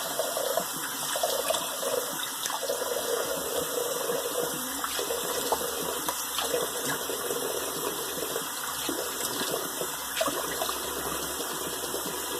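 Tap water running steadily into a sink while alum is rinsed off a freshly shaved face, with splashing as water is scooped up by hand. The running water stops abruptly at the end.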